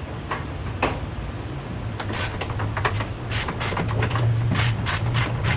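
Irregular light clicks and clatters of small metal parts being handled, coming thick and fast from about two seconds in, over a steady low hum.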